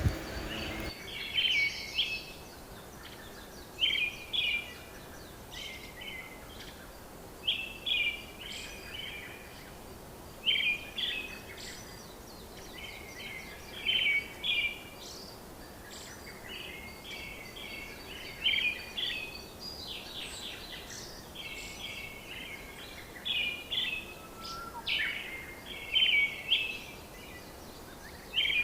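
Birds calling, short chattering phrases of chirps repeated every second or two over a low steady background hum.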